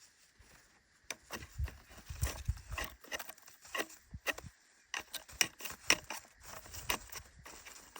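Common raven making a series of short, sharp clicks, several a second, starting about a second in.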